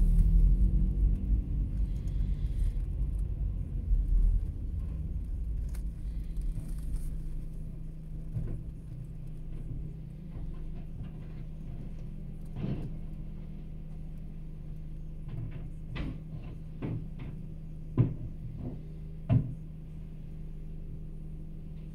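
Rear-loader garbage truck idling with a steady low hum, heard from inside a car behind it. At first the car's own low rumble fades as it rolls up and stops. In the second half come several sharp knocks as a plastic wheelie bin is rolled against the truck and hooked onto its lifter, the two loudest near the end.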